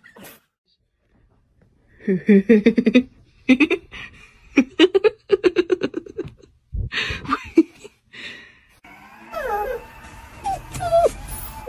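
Dog calls in short bursts, then high whines that slide up and down, over background music.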